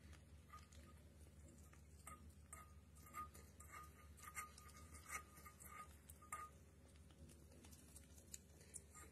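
Faint short beeps all at one pitch, about a dozen at uneven intervals, with light clicks, over a low steady hum.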